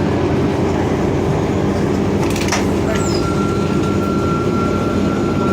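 Cabin noise of a 2004 Orion VII hybrid-electric city bus under way: a steady hum from the drivetrain and road. A short clatter comes a little past two seconds in, and a thin steady high tone starts about three seconds in.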